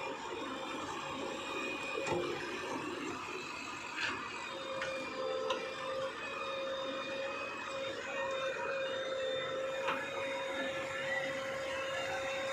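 JCB 3DX backhoe loader running as its backhoe arm is worked, with a steady hydraulic whine that strengthens about four seconds in. A few sharp clanks come from the bucket and linkage.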